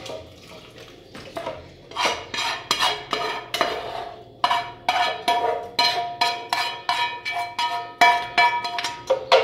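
Frying pan being scraped out and knocked as fried chiles are emptied into a blender jar: a few scraping strokes, then a run of sharp clinks about two a second, each leaving the pan ringing, the last near the end the loudest.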